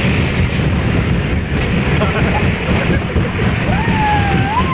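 Dragon-train roller coaster running, heard from a riding car: a steady rumble of the cars on the track mixed with wind on the microphone. Near the end a rider's long held cry rises and falls.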